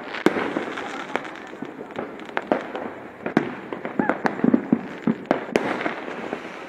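Fireworks and firecrackers going off in many sharp, irregular bangs and pops, over a continuous crackling haze of more distant explosions.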